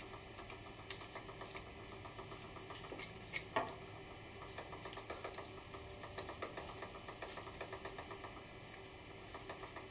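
Plastic vacuum fittings being unscrewed and worked off a Vacuubrand diaphragm pump head by hand: faint, irregular small clicks and scratches of plastic on plastic, with a few sharper clicks in the first four seconds.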